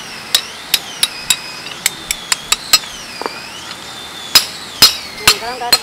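A hand hammer strikes a leaf-spring steel cleaver blank on a steel anvil block in sharp metallic blows. There is a quick run of about nine blows, a pause of over a second, then four louder blows about two a second.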